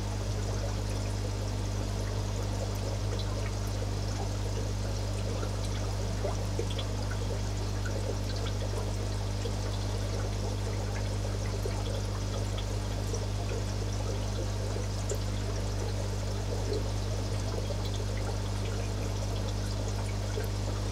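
Aquarium filtration: water trickling and bubbling steadily, over a steady low hum.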